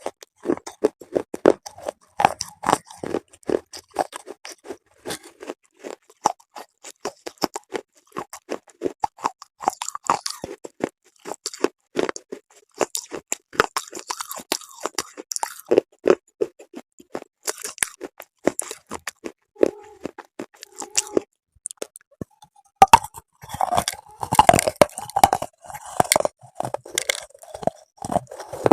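Close-miked biting and chewing of hard, brittle chalky pieces: rapid sharp crunches throughout. After a short pause about three quarters through comes a denser, louder run of crunching.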